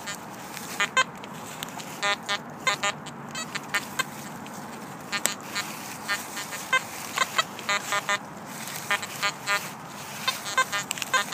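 XP Deus metal detector chattering with a rapid, irregular run of short beeps and grunts as the coil sweeps ground thick with buried iron; the constant iron signals make the ground noisy and hide good targets.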